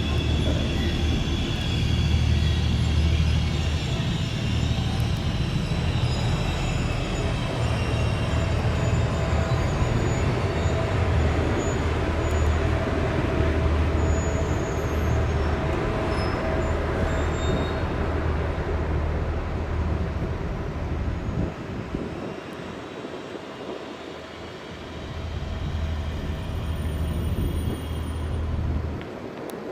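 A slow-moving train with a heavy, steady low engine drone and faint high squeals. The drone drops away about 22 seconds in, swells again, then falls off near the end.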